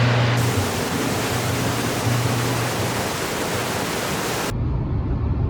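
Steady rushing of a waterfall in high flow, with low music notes under it. About four and a half seconds in, it cuts abruptly to a low rumble like a car's road noise.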